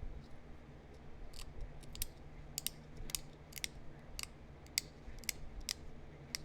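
Sharp clicks of small flakes snapping off the edge of a heat-treated chert arrowhead under a pressure flaker, about two a second, starting a little over a second in.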